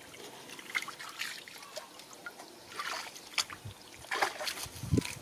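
Water trickling and splashing in shallow muddy water as a person moves through it, with a few heavier thuds near the end like steps in wet mud.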